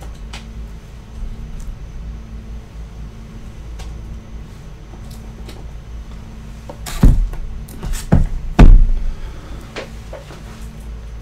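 Sealed cardboard boxes of baseball cards set down and stacked on a table: three thumps about seven to nine seconds in, over a low steady hum.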